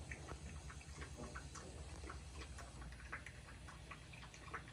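Alabai puppies moving about in a pen: an irregular scatter of small clicks and ticks over a steady low hum.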